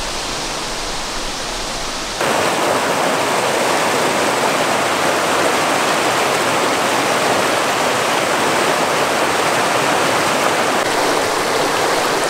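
Mountain creek rushing over rocks: a steady, full sound of flowing water that starts abruptly about two seconds in, after a quieter steady hiss.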